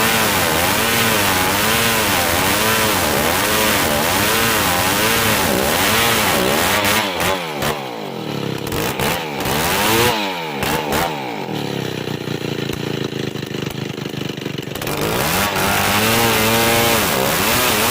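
Old chainsaw ripping dry merbau hardwood lengthwise: the engine runs hard under load, its pitch wavering as it bogs and recovers in the cut. About 7 s in it drops back to a low run with one short rev around 10 s, then revs up again about 15 s in.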